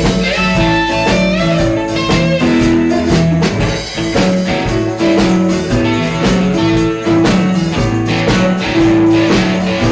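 A band playing a blues-style number without singing, with guitar to the fore over a steady beat.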